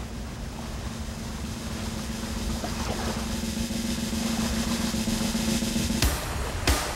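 Soundtrack drum roll under one steady held low note, slowly growing louder, breaking into sharp drum hits about six seconds in as the music starts.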